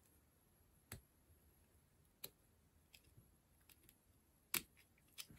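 Carving knife cutting into a small wood carving: a handful of faint, sharp clicks as the blade bites and chips pop out, the loudest about four and a half seconds in.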